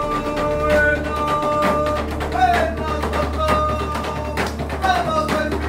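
Marquesan dance music: voices holding long notes over strummed guitar and steady drum beats, with a sliding note about two and a half seconds in and again near the end.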